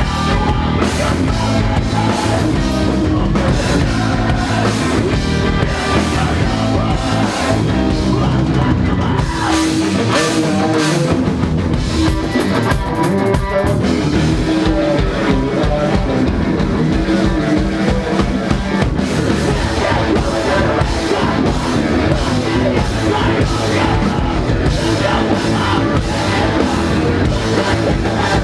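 A rock band playing loud and live, driven by a drum kit, with the lowest notes dropping out briefly about ten seconds in and again a few seconds later.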